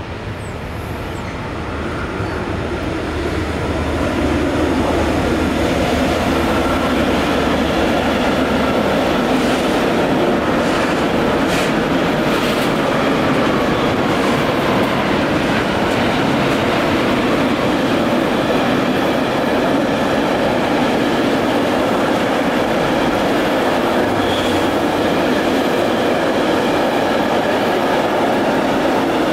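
Container freight train passing on the rails: the noise grows over the first few seconds as the train draws near, then holds as a steady, loud wheel-on-rail noise from the long line of container wagons rolling by.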